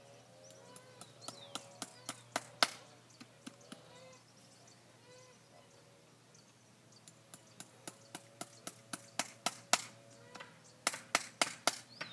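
Farrier's hammer driving nails through a horseshoe into a horse's hoof: two runs of quick, sharp taps, the second longer and louder.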